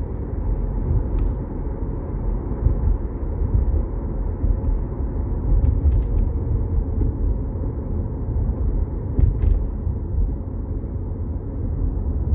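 Steady low rumble of a moving car heard from inside the cabin: tyre and engine noise, with a few faint clicks.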